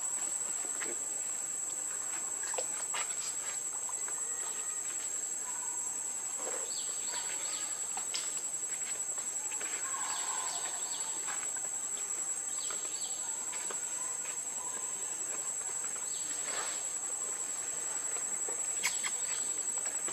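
Steady high-pitched insect drone of crickets or cicadas, with scattered light clicks and taps.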